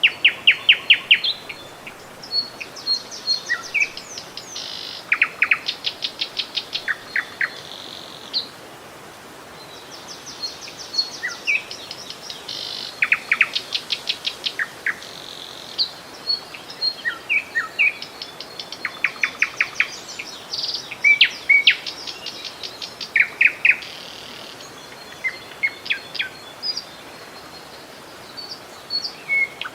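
Songbirds calling, with many short, rapid trills of evenly repeated notes at several pitches, coming one after another through the whole stretch, over a faint steady background hiss.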